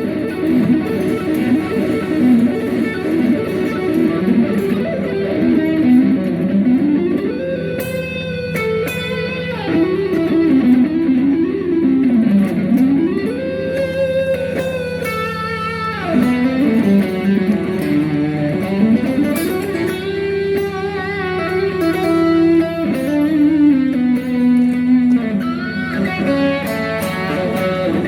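Instrumental rock music led by electric guitar, playing a melodic lead line with pitch bends and slides and long held notes over a steady low bass note.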